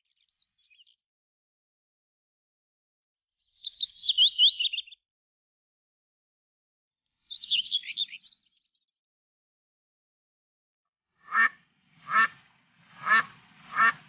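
A songbird sings two short, high, rapid warbling phrases. Near the end, a duck quacks four times, about one quack a second.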